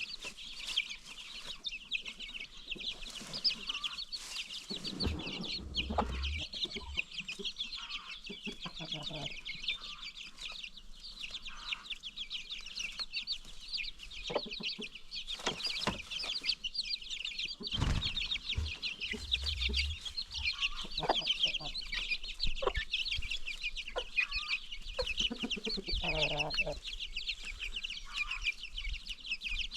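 Chickens with baby chicks: many chicks peeping in a dense, continuous high chorus, with a few lower clucks from hens now and then and a brief low knock about two thirds of the way in.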